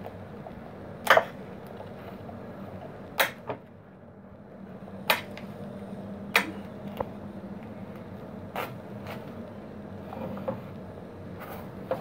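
Scattered sharp taps and clicks, about eight in twelve seconds, from a knife worked against a small wooden birdhouse to lift off tape.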